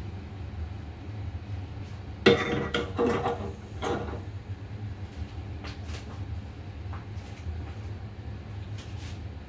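Small stainless steel saucepan of water set down on a gas stove's burner grate with a sharp metallic clank that rings briefly, followed by a couple of lighter knocks and a few faint ticks as it is settled.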